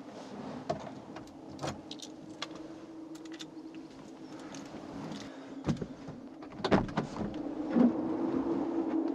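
Keys clinking and being handled inside a car, with small clicks and rustles over a steady low hum. Louder thumps and clunks come about six to eight seconds in as a car door is opened.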